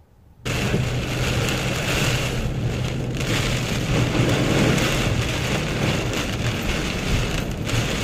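Floodwater spraying and splashing over a vehicle as it drives through a flooded road, over a steady low engine hum. It starts suddenly about half a second in.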